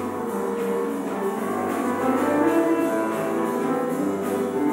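Instrumental music with several held notes sounding together.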